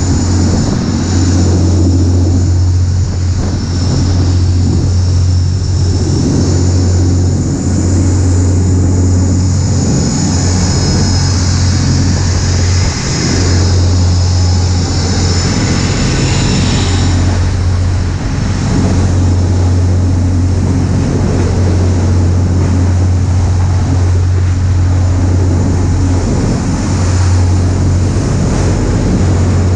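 A rescue vessel's engines drone steadily and loudly at speed, under a hiss of wind and of spray thrown up as the hull drives through the waves.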